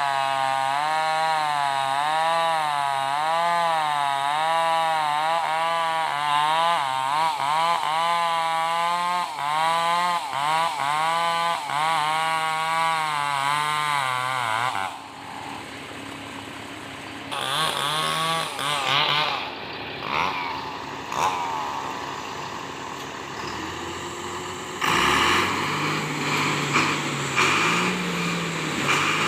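Chainsaw sawing through a large felled log, its engine pitch rising and falling steadily as the bar bites, for about fifteen seconds before dropping away. Near the end a Komatsu D70LE crawler bulldozer's diesel engine runs with a steady low note.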